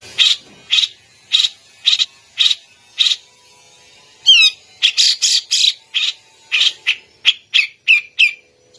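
Cucak jenggot (grey-cheeked bulbul) calling: short harsh, rasping notes repeated about twice a second, then a quick gliding whistle about halfway and a faster run of rasping notes.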